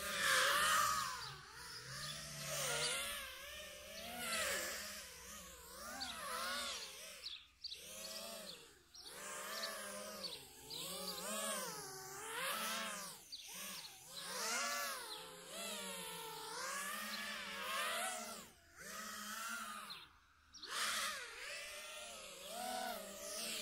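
FPV quadcopter's brushless motors whining, the pitch rising and falling again and again as the throttle changes, with a few short drops where the whine nearly stops.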